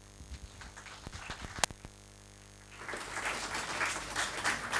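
A few scattered knocks and one sharp click, then audience applause breaking out about three seconds in and carrying on.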